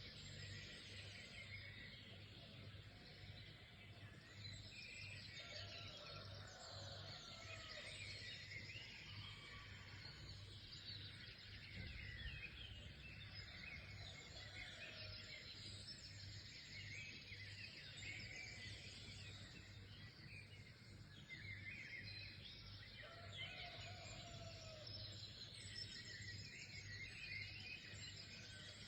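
Faint chorus of many small songbirds chirping and trilling over one another without a break, over a low steady pulsing hum.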